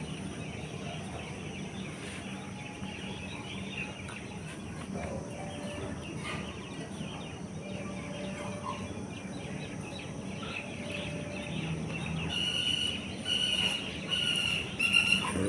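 Quiet background noise with a faint low hum. Near the end, a bird calls four or five times, each a short steady note.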